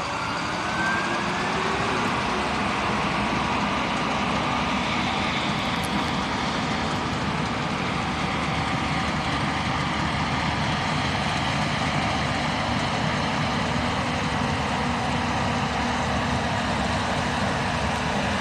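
Case IH combine harvester running steadily while harvesting soybeans, a dense mechanical drone with a whine that rises in pitch in the first second or so.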